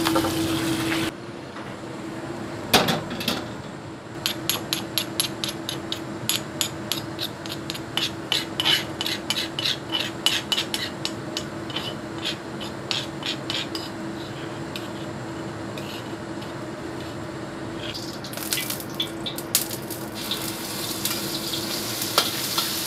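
Metal spoon scraping and clinking against a stone mortar, about two or three sharp clicks a second for roughly ten seconds, as ground chili spice paste is scooped out. Near the end the paste starts sizzling as it goes into hot oil in a wok. A steady hum runs underneath.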